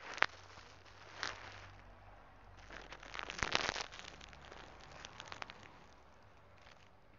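A sharp click right at the start, a short rustle about a second in, then a longer stretch of crackling, rustling clicks in the middle, with a few fainter clicks after.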